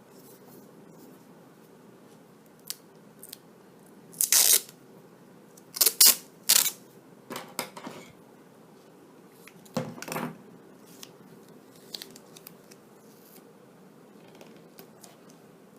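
Black electrical tape being pulled off the roll and cut with scissors: several short ripping bursts, the loudest about six seconds in, with small clicks of handling between them.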